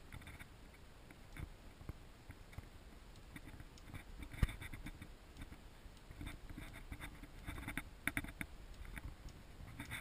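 Faint, irregular scraping and light tapping of a camera being handled and moved about, with one sharp knock about four and a half seconds in and a quick run of clicks near the end.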